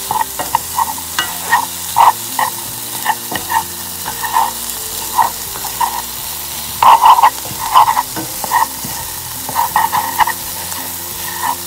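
Diced chicken and onions sizzling in a frying pan while a spatula stirs and scrapes them across the pan, in irregular strokes over a steady sizzle.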